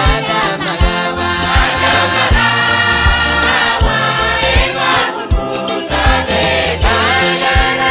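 A church choir singing an upbeat gospel song over a backing track with a steady low drum beat.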